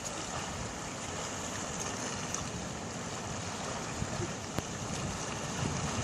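Steady ocean surf with wind rushing on the microphone.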